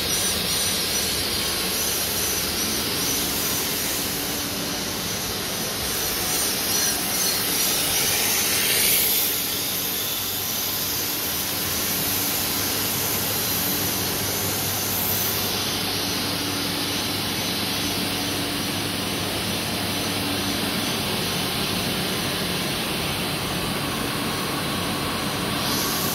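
Filament extrusion line machinery running: a steady rushing hiss over a low motor hum, with a louder whooshing swell about nine seconds in.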